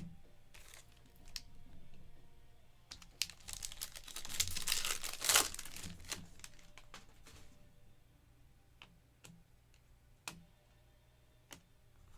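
Foil wrapper of a Panini Mosaic Football pack crinkling as it is torn open, densest about four to six seconds in, among light clicks and taps of cards being handled and set down.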